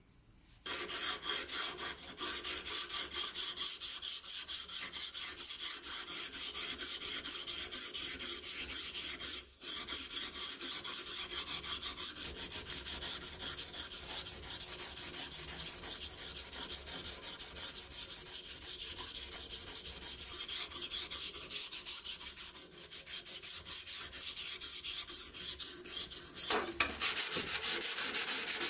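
Steel scissor blade rubbed on a sharpening stone in rapid back-and-forth strokes, a steady gritty rasping. Near the end, after a brief break, it changes to hand-sanding the bare steel blade with sandpaper.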